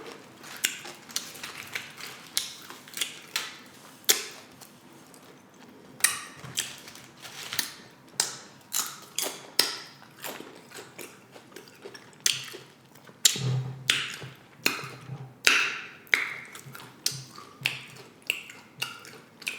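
Close-miked crunching and chewing of tortilla-chip nachos: irregular crisp cracks, a few a second, with short pauses between bites.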